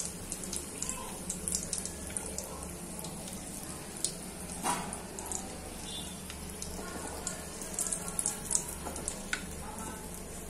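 Chicken kofta balls sizzling in hot oil in an aluminium kadai, with scattered crackling pops, and a slotted spoon knocking once against the pan about halfway through. A steady low hum lies underneath.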